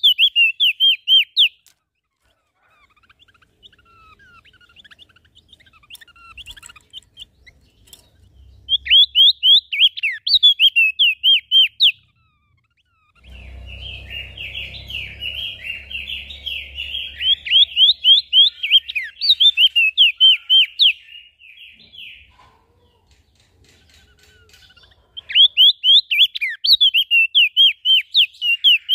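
A small songbird singing in bursts of rapid, high, sharp chirping notes. Four bursts of a few seconds each are separated by quieter gaps. The longest burst, in the middle, has a low rumble under it.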